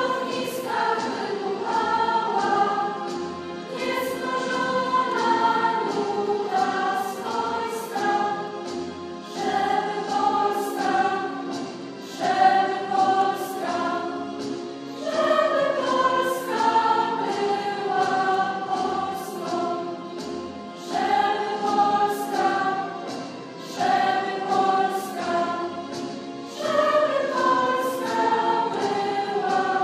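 A girls' school choir singing, in phrases of a few seconds each with short breaths between them.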